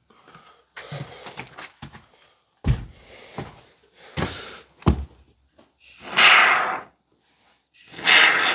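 Polyurethane foam gun hissing in short bursts as mounting foam is squirted into gaps between wooden boards. Two dull knocks come in between, the longest hiss about six seconds in.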